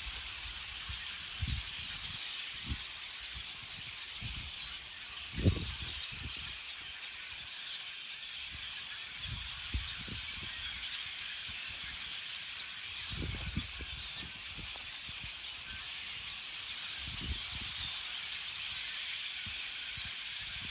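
A large flock of birds chattering: a dense, continuous din of many overlapping chirps and squeaks. Occasional low thumps come through underneath, the loudest about five seconds in.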